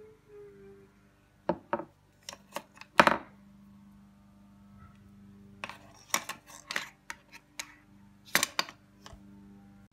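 Irregular sharp clicks and knocks of small hard blind-box toy pieces and their little box being handled and set down on a wooden surface, the loudest knock about three seconds in.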